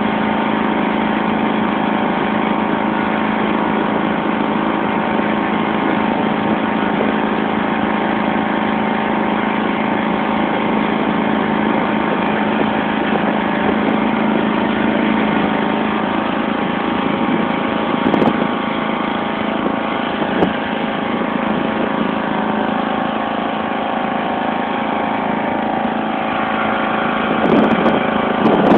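Engine of a 1991 John Deere LX176 lawn tractor running steadily as the tractor plows snow with its front blade. A few clicks and a short rise in level come near the end.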